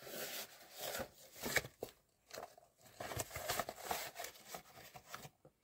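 Paper stickers and packaging being handled, with irregular rustling and crinkling.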